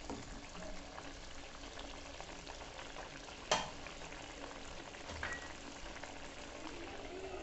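Snakehead fish and potato curry simmering and sizzling in a frying pan, stirred with a wooden spatula at first. A single sharp knock about three and a half seconds in is the loudest sound.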